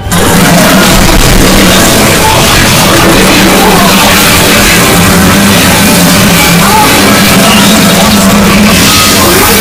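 Loud rock-style music that cuts in suddenly and runs steadily at full volume, dense and harsh across the whole range.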